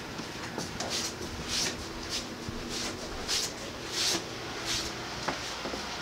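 Footsteps shuffling across an indoor floor, a soft scuff about every two-thirds of a second, over a faint steady hum.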